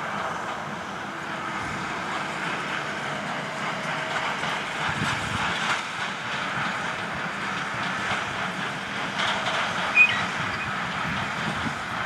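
New Holland T7.210 tractor running while the Massey Ferguson conventional small-square baler it pulls clatters through its baling strokes. A short high chirp about ten seconds in.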